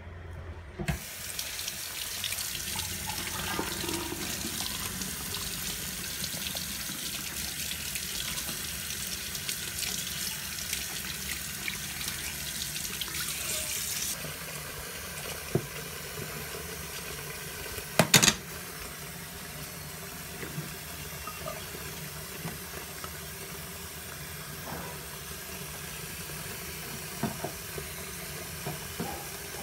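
Kitchen tap running into a stainless steel sink as raw pork is rinsed under the stream, water splashing into a bowl. The splashing turns softer about halfway through, and a sharp clatter sounds once just after that.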